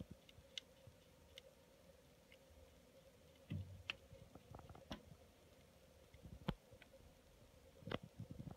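Near silence with a faint steady hum, a few scattered faint clicks and some soft low bumps.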